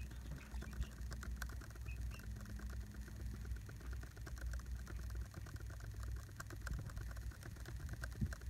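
Mouse scroll wheel clicking in quick, irregular runs of small ticks over a low steady hum.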